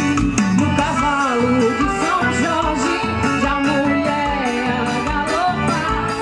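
Live forró band playing, with a steady dance beat and a melody that bends in pitch.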